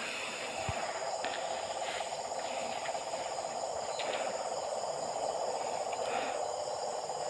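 A night chorus of many frogs calling together from the rice paddies, a dense, steady, fast-pulsing chorus, with a faint high insect hum above it.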